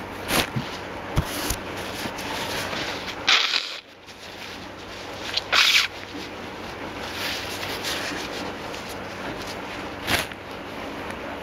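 A person's short, sharp breathy bursts through the nose, sniffs and small sneezes brought on by an allergy, several times a few seconds apart.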